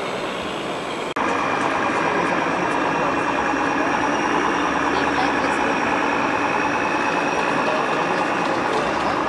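Steady, engine-like hum of a remote-controlled model truck's diesel sound module over the general murmur of a busy exhibition hall. The sound drops out for an instant about a second in, then carries on louder.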